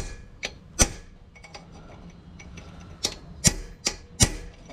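Small hammer tapping lightly on a snapped head bolt in the Renault F4R engine's aluminium cylinder head, to free the stuck bolt. Sharp metallic taps: two near the start, the second the loudest, then four in quick succession near the end.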